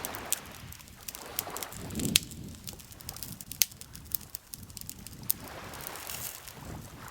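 Wood campfire crackling, with irregular sharp pops and snaps, the loudest about two seconds in. Underneath, soft swells of lake water lapping come and go.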